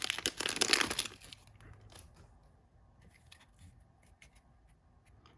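A hockey card pack's wrapper being torn and crinkled open during the first second, followed by faint scattered ticks as the cards inside are handled.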